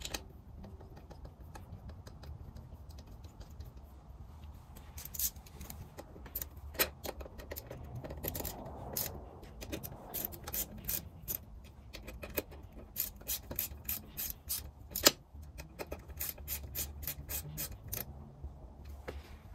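Irregular clicks, taps and scrapes of hand tools and small metal parts being handled during assembly work, over a steady low hum. The clicks come thickest over the last several seconds.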